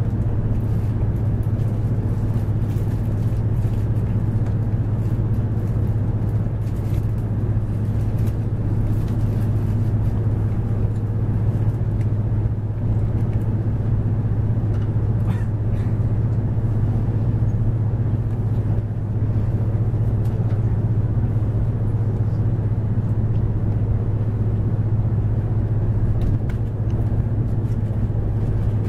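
Cabin noise inside a Taiwan High Speed Rail 700T train pulling out of the station and gathering speed: a steady low hum over the rumble of the running gear.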